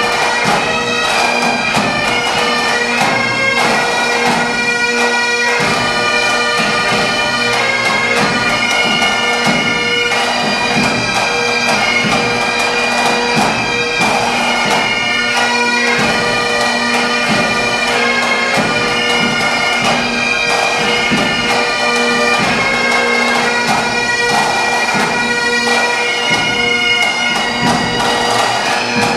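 Pipe band playing a tune: Great Highland bagpipes carry the melody over a steady drone, with snare, tenor and bass drums keeping time.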